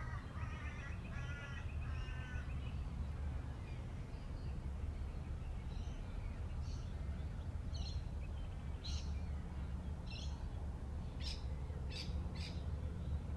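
Wild birds calling: a run of harsh repeated calls in the first few seconds, then scattered short high chirps later on, over a steady low rumble.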